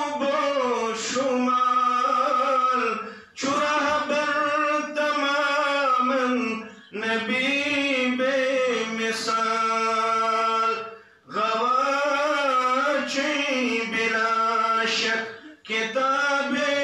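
A man chanting unaccompanied in long, drawn-out melodic phrases, about four of them with short breath pauses between. It is devotional verse sung from the pulpit after a supplication.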